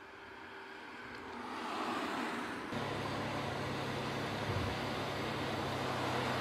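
Toyota Corolla sedan driving up, its tyre and engine noise growing louder as it approaches. About two and a half seconds in, the sound changes suddenly to a steady low engine hum over road noise.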